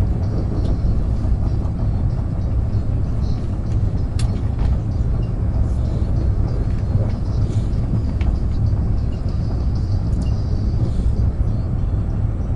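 Sapsan (Siemens Velaro RUS) high-speed electric train running at speed, heard inside the passenger car as a steady low rumble, with a few faint clicks.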